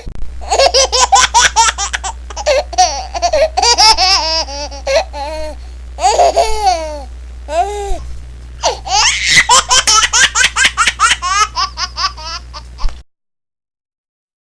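Baby laughing in quick runs of giggles, with long rising-and-falling squeals about six seconds in, then more rapid giggling that cuts off suddenly near the end.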